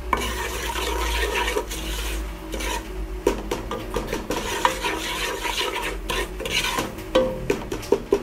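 A wooden spoon stirring and scraping around a nonstick pot of melted butter and oil frying with turmeric, spices and dissolving chicken stock cubes, with a few sharper knocks of the spoon against the pot.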